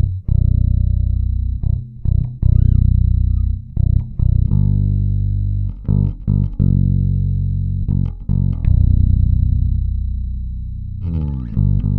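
Warwick Corvette $$ five-string electric bass played fingerstyle, with both pickups switched to humbucker mode. It plays a riff of plucked low notes, some left to ring and fade, broken by short stops, with a quick run of rising notes near the end.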